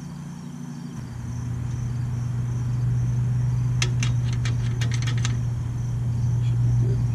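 A steady low hum, louder from about a second in, with a steady high insect chirp under it and a quick run of sharp clicks about four seconds in.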